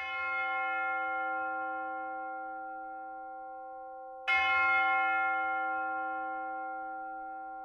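A large bell struck twice, about four seconds apart. Each stroke rings on with several tones at once and dies away slowly.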